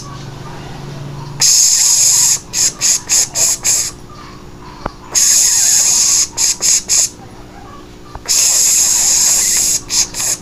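Imitation tattoo-machine sound for a mock tattooing: a high hiss in bursts. A long hiss is followed by a quick run of short hisses, and the pattern comes round about three times.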